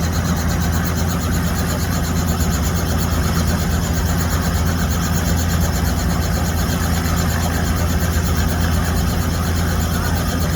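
Tour helicopter running on the ground with its rotor turning: a steady, loud drone with a fast, even beat.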